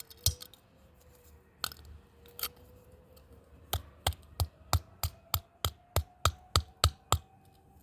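Sharp repeated blows striking an RFID lock keypad as it is smashed: a few separate hits at first, then a fast run of about three to four hits a second for several seconds before they stop.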